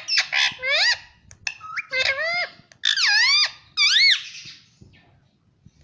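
Pet parrots giving a run of shrill, squeaky chirps and whistled calls that sweep up and down in pitch, stopping about four and a half seconds in.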